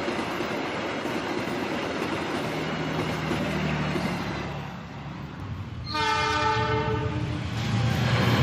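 Recorded locomotive sound effect from a toy miniature train: steady rail running noise, then one horn blast about six seconds in lasting about a second and a half, after which the running noise picks up again.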